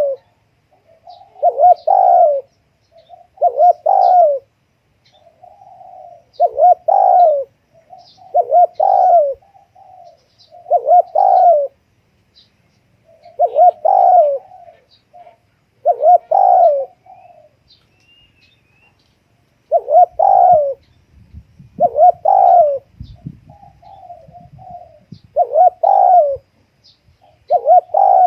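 Spotted dove cooing: repeated coo phrases about every two seconds, each a soft lead-in note rising into a louder rolling coo.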